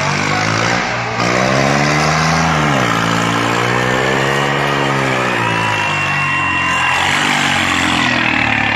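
Swaraj 855 tractor's three-cylinder diesel engine revving hard under load while the tractor rears up on its rear wheels, its pitch swinging up and down twice. A thin high tone sits over it in the second half.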